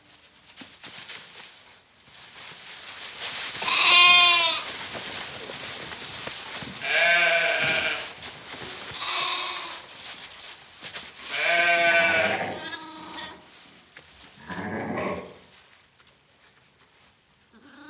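Sheep and lambs bleating in a pen, about five wavering calls a few seconds apart, over a rustling of bodies moving in straw.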